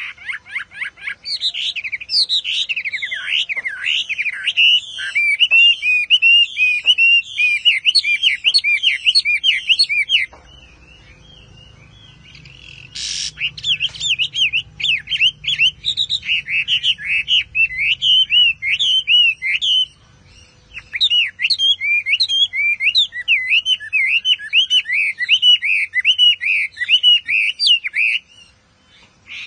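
Caged Chinese hwamei singing: long runs of rapid, varied whistled notes that swoop up and down in pitch. The song comes in three long bouts, breaking off briefly about ten seconds in and again about twenty seconds in.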